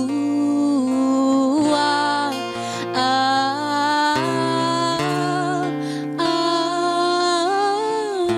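Worship music: a singer holds long wordless notes, gliding between pitches with vibrato, over acoustic guitar and sustained low chords.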